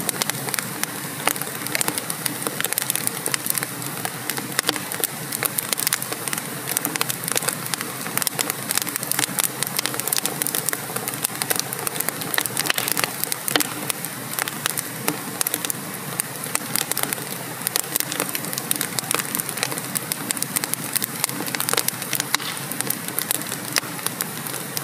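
Wood fire burning in a fireplace: a dense, irregular crackling of sharp pops and snaps over a steady hiss.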